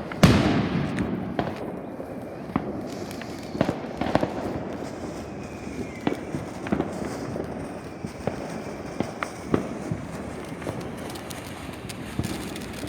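Fireworks going off: a loud bang just after the start that fades out over a couple of seconds, then scattered sharp pops and bangs at irregular intervals, roughly one a second.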